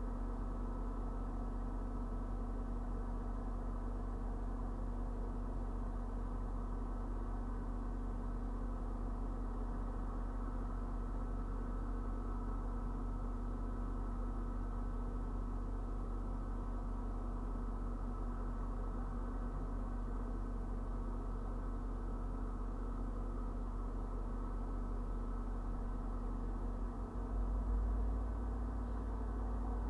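Steady low engine hum with several steady tones under it, picked up by a dashcam microphone inside a parked vehicle beside a stopped commuter train. Near the end the deep rumble grows louder and stays up.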